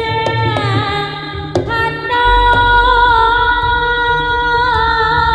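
Live jaranan music: a high melody line held for seconds and bending in pitch now and then, over drum strokes, with a deep low boom coming in about two seconds in and ringing on.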